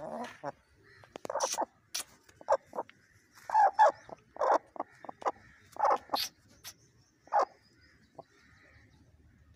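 A hen calling in short, irregular squawks, about a dozen over several seconds.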